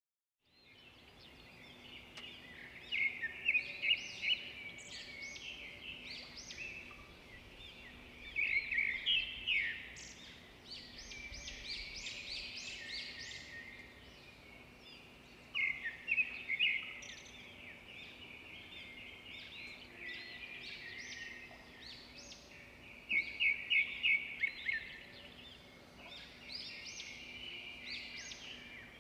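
Small birds chirping and singing, fading in at the start: bouts of rapid high chirps every several seconds, with softer chirping between them, over a faint steady low hum.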